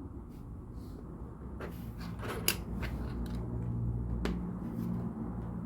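Plastic LEGO pieces being handled and pressed together: a scattered series of small sharp clicks and taps, about half a dozen over a few seconds.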